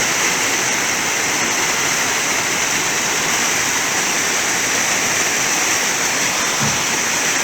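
Waterfall pouring in a loud, steady rush of falling water.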